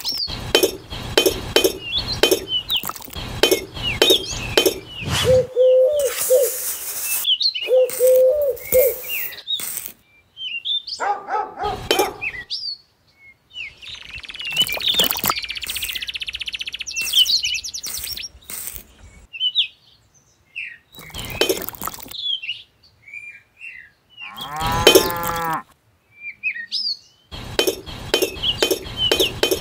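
A mixed sound-effect track: bird chirps, farm-animal calls and small clinks, with runs of regular clicking at the start and near the end.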